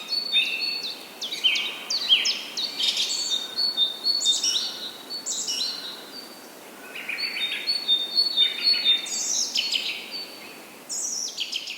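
Nestlings chirping in the nest: many short, high chirps that sweep downward, overlapping in quick succession, easing off briefly about halfway through before picking up again.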